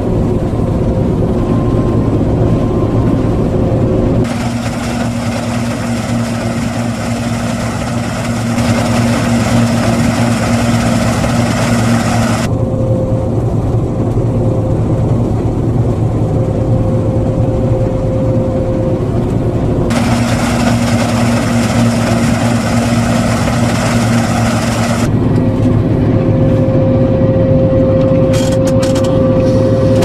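New Holland TX62 combine harvester running under load, heard from inside the cab: a steady machine drone with a constant hum and whine. The sound shifts abruptly every several seconds.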